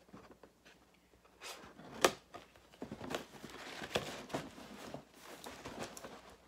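A heavy cardboard gift box being handled and tilted: scattered scrapes and taps, a sharp knock about two seconds in, and its contents shifting around inside.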